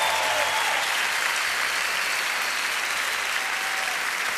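Large concert audience applauding, a steady wash of clapping from a packed hall.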